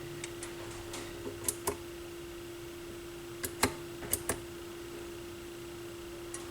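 Technics SL-B202 belt-drive turntable running on a temporary test belt, a faint steady hum under several light clicks and ticks; the platter turns too slowly, with the belt slipping on the motor pulley.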